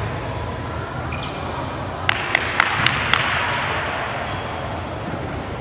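Steady background noise of a basketball game in a large gym, with a quick run of five sharp taps about a quarter second apart about halfway through.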